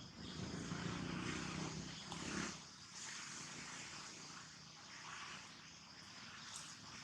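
A motor vehicle's engine running, loudest for the first two and a half seconds and then dropping away.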